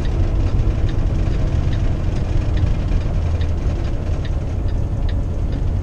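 Kenworth T680 semi truck driving at speed, heard from inside the cab: a steady low drone of diesel engine and road noise.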